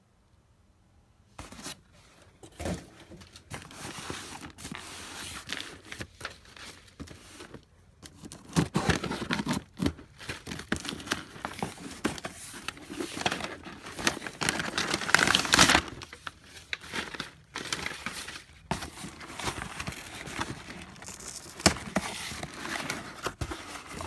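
Cardboard shipping box being opened by hand: packing tape ripped off, flaps pulled back and plastic packaging crinkling, a busy run of tearing and crackling with many sharp clicks. It starts about a second and a half in and is loudest in the middle.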